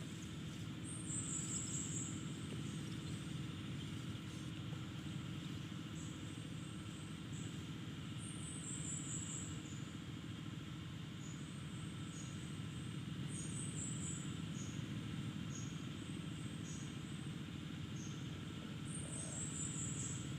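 Rural outdoor ambience: insects buzzing steadily and a bird giving a quick series of high, falling chirps that repeats about every five seconds, over a low steady rumble.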